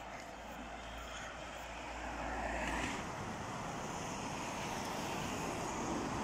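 Street traffic noise picked up by a smartphone's microphone, steady at first and changing about three seconds in, then slowly growing louder as a hybrid city bus approaches.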